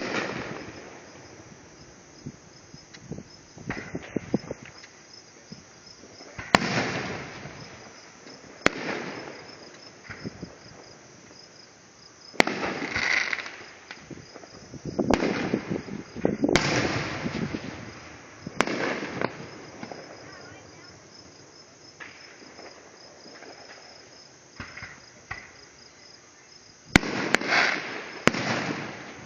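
Fireworks going off: a sharp bang every few seconds, each followed by a rumbling swell that fades over a second or two, with a quick cluster of bangs near the end. Crickets chirp steadily underneath.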